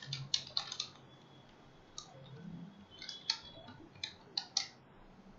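Computer keyboard keys being typed: quick runs of sharp clicks with short pauses between the runs.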